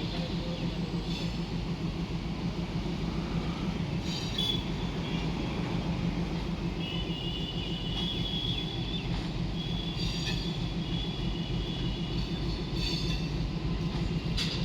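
Passenger train rolling on the rails with a steady low rumble, several times joined by high metallic squeals from the wheels and a few sharp clicks.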